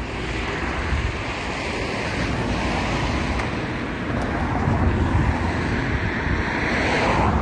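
Wind buffeting the phone's microphone over a steady rush of road traffic. One vehicle swells louder near the end.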